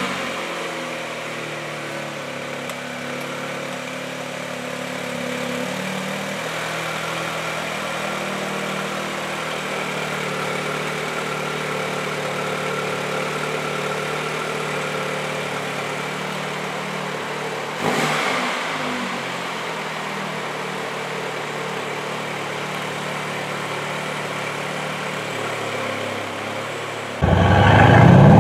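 Audi A3 sedan's engine idling just after start-up, the idle stepping down slightly about six seconds in, with one short throttle blip about eighteen seconds in. Near the end a much louder Mercedes-AMG C63 S V8 takes over.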